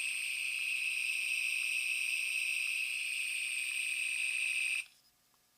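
The Wand Company's Star Trek Original Series phaser replica firing its setting-5 sound effect from its built-in speaker: a steady, high-pitched electronic tone of several pitches held together, which cuts off abruptly near the end.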